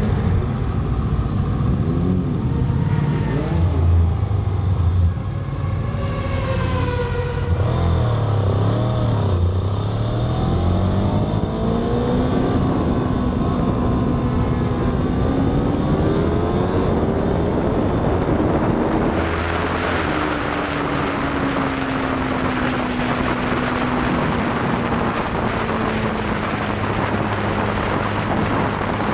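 Aprilia Tuono V4 motorcycle's V4 engine heard from an onboard camera: the pitch wavers up and down at low speed, then climbs steadily as the bike accelerates. About two-thirds of the way in, loud wind rush over the microphone joins the engine as the bike runs at speed.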